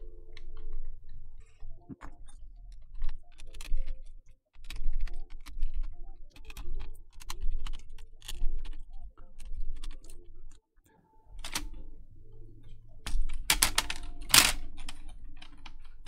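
Irregular plastic clicks and clacks from a partly dismantled Logitech K800 keyboard being handled, its keys and case parts knocking, with soft handling bumps underneath and a run of louder clicks near the end.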